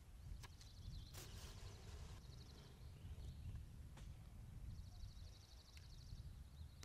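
Faint sounds of hand-stitching leather: thread pulled taut through the stitching holes with a short rasp about a second in, and a few light clicks. A low steady rumble runs underneath, and a rapid high trill comes in about two-thirds of the way through.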